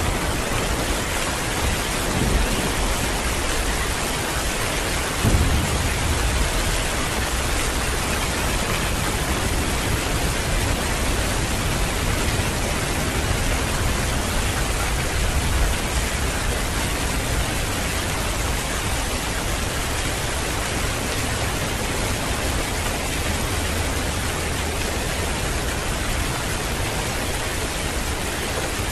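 Heavy rain falling steadily in a dense hiss, with low rumbles of thunder swelling briefly about two and five seconds in.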